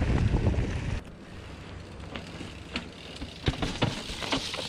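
Mountain bike on a rough trail descent: wind rumbles on the microphone for the first second, then cuts off abruptly. After that comes a quieter stretch of scattered sharp clicks and knocks from the bike on the rocky ground.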